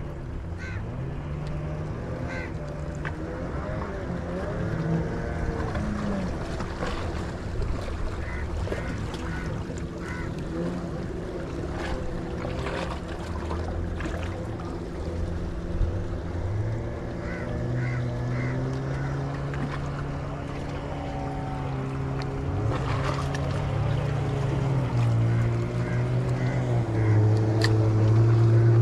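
Fishing boat engine running with a steady hum that strengthens about two-thirds of the way through and grows louder near the end as the boat comes closer, over wind and water noise.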